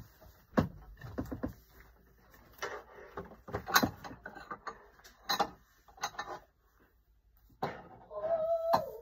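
Scattered knocks and clatters of toys and a small cabinet door being handled, with quiet gaps between them. Near the end a high, drawn-out, wavering voice-like sound begins.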